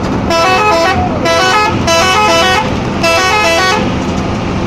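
Indonesian bus telolet horn, a multi-trumpet melodic air horn, blaring its short stepping tune four times in quick succession, each burst under a second, over a steady low rumble.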